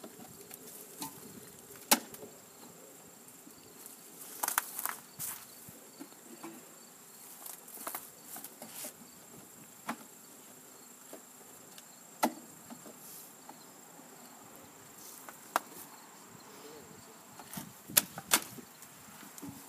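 Insects buzzing and chirping steadily, with sharp clicks and knocks every few seconds.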